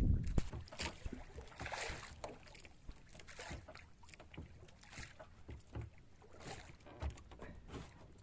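Knocks and clatters of gear being handled in a small wooden fishing boat, scattered and irregular, after a burst of low noise at the very start.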